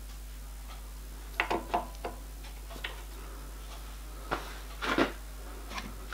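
Scattered sharp metallic clicks and knocks as a spindle indexer is turned and its index pin set into the hole plate, the loudest about five seconds in, over a steady low hum.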